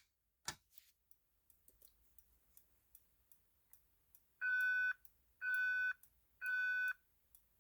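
Fire alarm speaker strobe, set to its loudest tone, sounding three short pitched beeps about a second apart, starting a little past halfway through after a faint click. This is the temporal-three evacuation pattern of a fire alarm going off.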